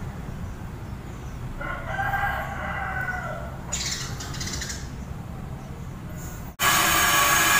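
A rooster crows once, a single call lasting about two seconds, over a low steady hum. Near the end the sound cuts abruptly to a louder steady buzz.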